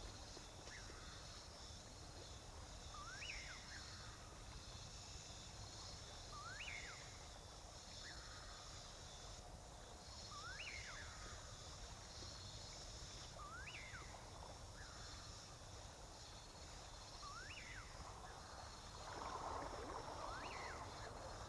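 Faint wildlife ambience: a short rising whistled call repeats about every three to four seconds, each followed by a fainter brief note, over a steady high insect chorus. A soft rustling noise swells near the end.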